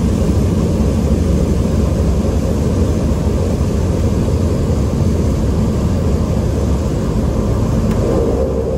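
Cabin noise of a Cessna 208B Caravan's turboprop engine and propeller, heard from inside the cabin as a loud, steady low drone while the plane rolls along the runway. It eases slightly near the end.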